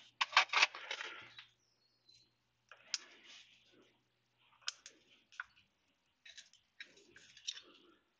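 Small metal clutch parts clicking and clinking as they are handled. There is a burst of clatter in the first second and a half, then scattered single clicks.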